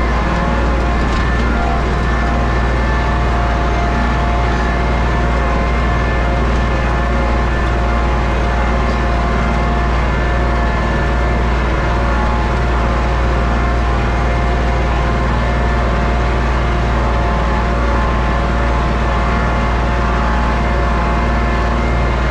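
Engine running steadily and evenly, powering a potato-harvester plow lifting potatoes out of the row.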